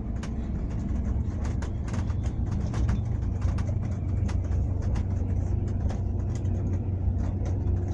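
Steady low rumble of a moving road vehicle, with many short clicks and rattles scattered throughout.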